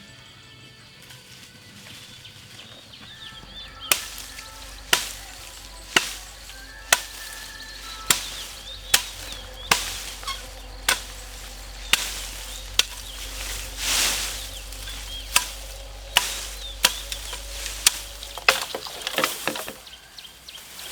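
Repeated chopping strokes of a hand tool cutting through garden growth: sharp strikes about once a second, then a quicker flurry of strikes near the end.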